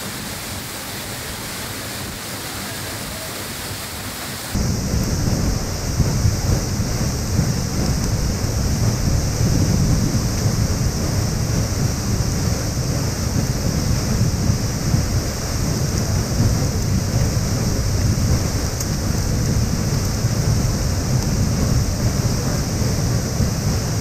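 Steady rushing noise of a tall waterfall close by. About four and a half seconds in it turns suddenly louder, with a heavy low rumble.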